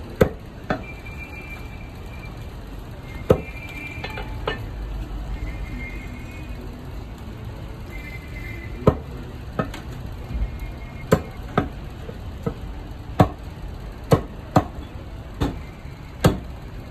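A cleaver chopping a whole chicken into pieces on a chopping block: about fifteen sharp, irregular chops, some in quick pairs, with a pause of a few seconds in the middle.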